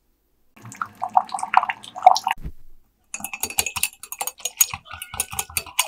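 Liquid splashing into a ceramic mug, then a small metal egg whisk clicking rapidly against the mug as kitten milk replacer powder is stirred in.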